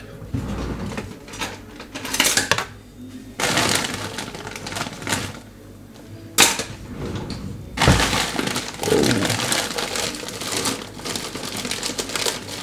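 Kitchen handling noise: clinks and knocks of containers and utensils on a worktop, with two sharper knocks past the middle, then a plastic bag of frozen berries rustling toward the end.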